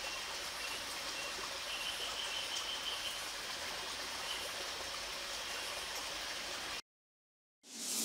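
Steady outdoor night ambience, an even hiss with faint high chirps now and then. It cuts off suddenly near the end, and a brief whoosh follows as a logo transition sound effect.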